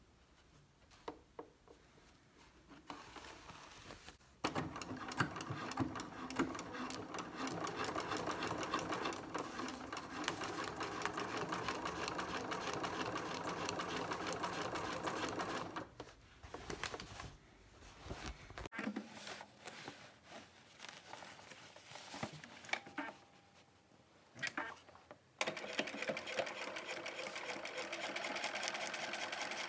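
Bernina sewing machine stitching a band onto fabric in runs of fast, even stitches. After a few light clicks it starts about four seconds in and runs steadily until about sixteen seconds, sews a few short bursts, and then runs steadily again near the end.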